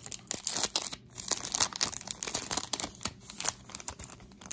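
Foil wrapper of a Bowman Platinum baseball card pack being torn open and crinkled by hand, a dense run of sharp crackles.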